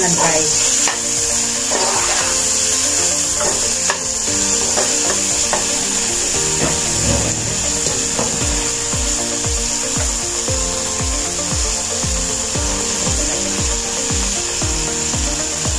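Metal spatula scraping and stirring in a wok while garlic, ginger, tomatoes and dried shrimp fry with a steady sizzle. Background music runs underneath, and a low regular beat comes in about halfway through.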